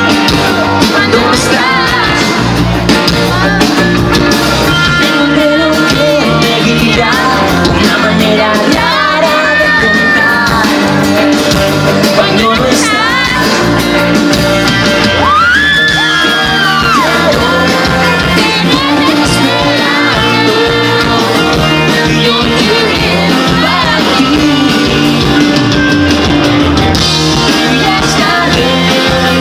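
Live band music with a singer, loud and continuous, with sung lines gliding in pitch over sustained chords.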